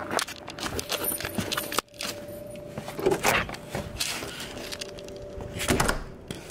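Footsteps and handling noise on a handheld camera: clothing rubbing over the microphone, with scattered clicks and knocks.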